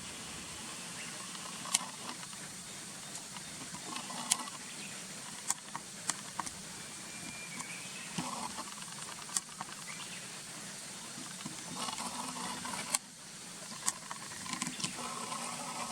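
Steady background hiss with scattered sharp clicks, about seven spread irregularly, and intermittent soft rustling.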